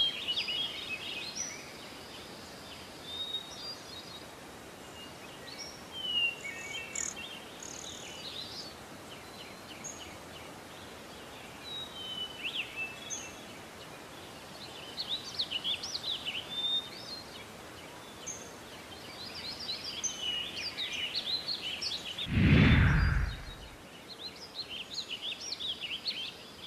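Birds chirping and calling in short high notes over a steady outdoor background. Near the end comes a loud rush of noise lasting about a second.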